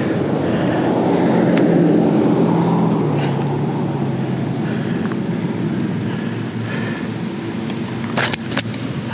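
A motor vehicle driving past: a steady engine hum that swells about two seconds in, drops slightly in pitch as it goes by, then fades. A few sharp clicks and knocks come near the end.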